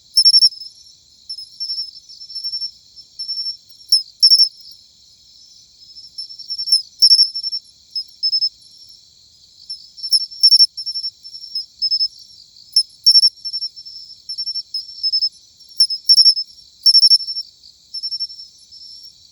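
Matsumushi (pine cricket, Xenogryllus marmoratus) singing its 'chin-chirorin' call: a run of soft, high, short chirps, broken every few seconds by a pair of loud, sharp notes.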